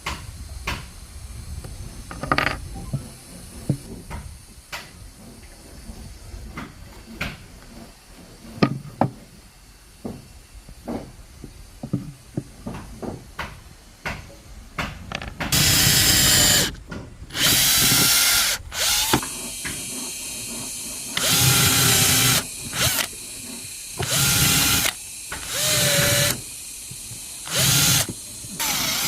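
Light scattered knocks and clicks, then, about halfway through, an electric drill running in short bursts of a second or two, about seven times, its motor whine starting and stopping.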